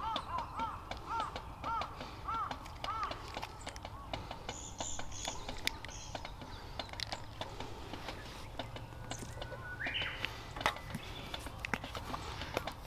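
A bird calling a quick series of about six arched notes, roughly two a second, in the first three seconds, with a few high chirps a little later and another call near the end, over a steady scatter of small clicks.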